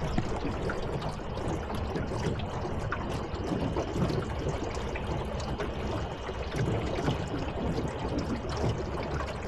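Water trickling and lapping against a small boat's hull: a steady wash with small scattered splashes.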